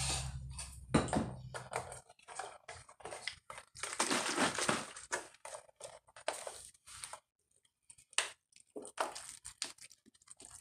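Plastic water bottle crinkling and crackling as it is handled and squeezed: a run of irregular sharp crackles with a denser stretch about four seconds in.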